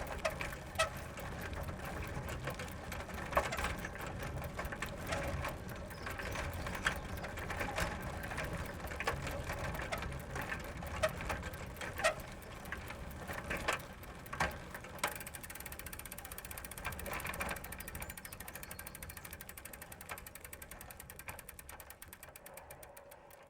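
Bicycle ridden slowly: the chain and drivetrain rattle steadily, with sharp clicks every second or so. About fifteen seconds in the pedalling stops and the freewheel ratchet ticks evenly as the bike coasts, fading away near the end.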